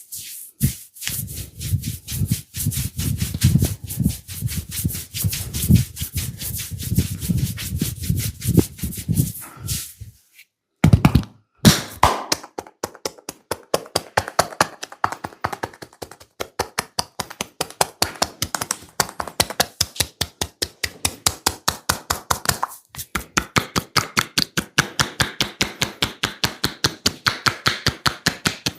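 Percussive massage strokes, hands tapping and chopping rapidly on skin in a quick, even rhythm. For the first third the strokes are heavier, with a dull thud under each tap; after a brief pause they turn lighter and sharper, several a second.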